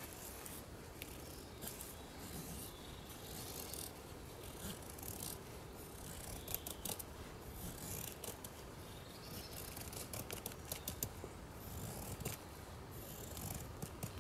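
A steel knife blade shaving a wooden stick in repeated, irregular scraping strokes, cutting curls for fire-lighting tinder.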